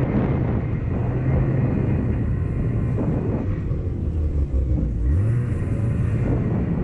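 Snowmobile's two-stroke engine running under throttle as the sled rides across snow, with track and wind noise. The engine note drops a little about four seconds in, then climbs again about a second later as the throttle is reopened.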